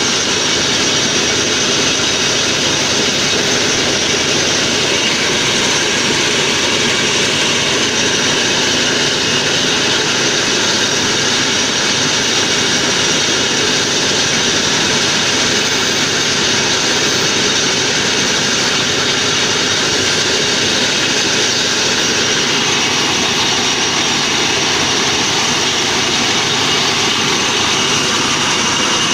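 Motorised corn sheller running steadily under load, shelling and husking maize cobs as they are fed in.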